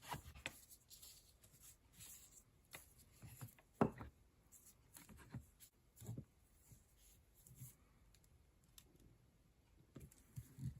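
Faint, scattered clicks and taps of small pen-kit parts being handled and pressed together, the loudest about four seconds in.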